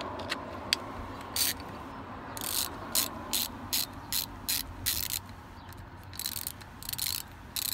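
A brand-new Craftsman 120-tooth 3/8-inch drive ratchet with a socket on it: a couple of sharp clicks as the socket snaps on, then short, fine-toothed ratcheting buzzes as the handle is swung back and forth, about three a second, pausing briefly before starting again. The owner guesses the mechanism's grease is still spreading out as it breaks in.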